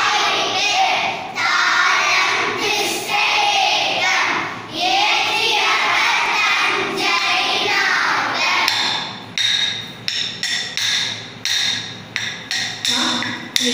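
Many children's voices together in unison. From about nine seconds in, sharp rhythmic strikes with a short ringing tone, about two to three a second, keep time.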